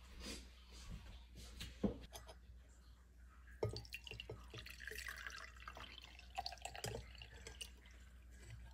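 Blended celery juice poured from a bowl through a fine mesh strainer into a glass jar, trickling and dripping. A few sharp clicks and knocks of handling come in the first half, the loudest about two seconds in.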